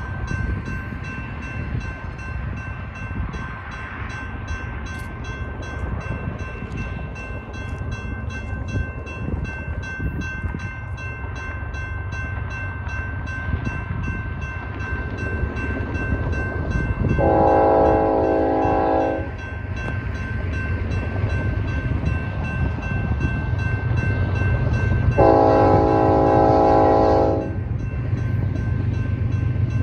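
Railroad grade-crossing bell ringing steadily while an approaching diesel freight train sounds two long horn blasts, about 17 and 25 seconds in. The low rumble of the locomotives grows louder near the end as the train nears the crossing.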